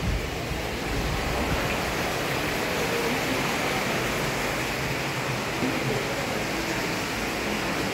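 A steady rushing noise at an even level throughout.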